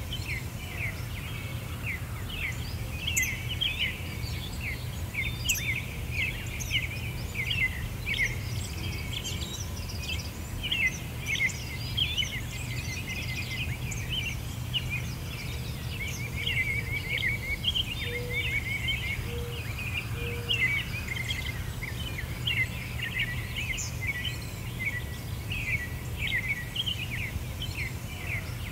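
A dense chorus of many small birds chirping in quick, short calls over a steady low hum, with a few soft, lower notes about two-thirds of the way through.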